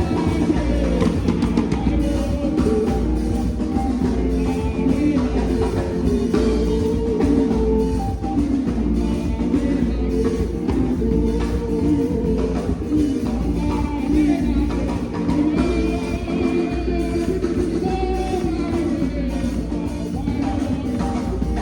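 Rock music: a singing voice over guitar and drums with a steady beat.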